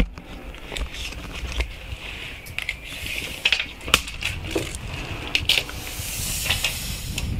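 Handling noise from a tape measure being pulled out and laid across a sawn slab: scattered sharp clicks and scraping rustle, with a low rumble underneath.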